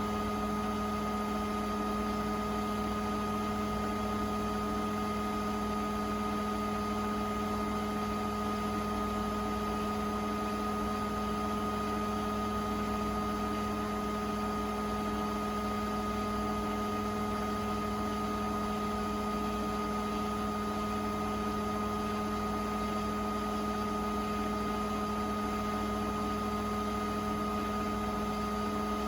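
Beko WTK104121A washing machine running steadily on its rinse programme: an unbroken motor hum with a constant higher whine over it.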